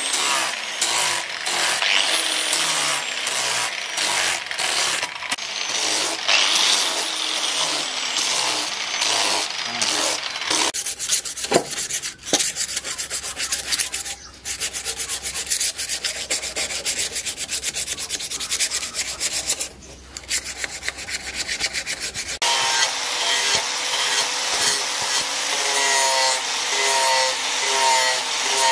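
An angle grinder with a sanding pad shapes a wooden knife handle in repeated passes. From about ten seconds in, the handle is sanded by hand with quick rubbing strokes. For the last six seconds the angle grinder runs against the steel blade, grinding with a steady whine.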